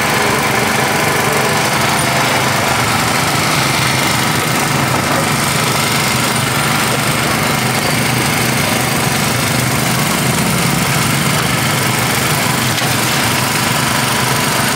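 A small engine running steadily: an even mechanical hum that holds its pitch, with no change in speed.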